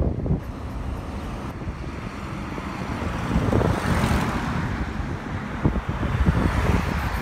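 Road traffic: a car drives past close by, swelling and fading about four seconds in, and another vehicle passes near the end, over wind buffeting the microphone.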